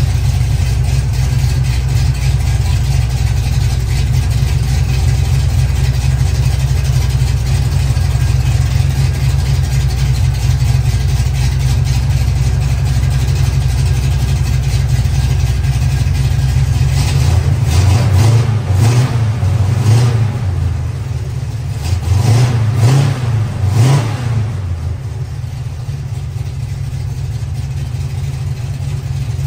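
Chevy Nova's engine with a freshly fitted Quick Fuel Brawler carburetor, running at a steady idle. About seventeen seconds in, the throttle is blipped several times in two quick bunches, the revs rising and falling each time, before it settles back to idle.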